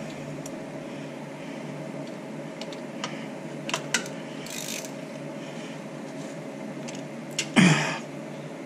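Hand tools working on a C5 Corvette's torque converter bolts through the bell housing access hole: a 15 mm wrench and small ratchet give scattered metal clicks over a steady hum, with one louder knock near the end.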